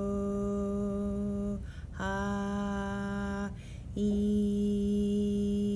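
A woman humming one steady, held note three times at the same pitch, with short breaks between; her vocal cords vibrating.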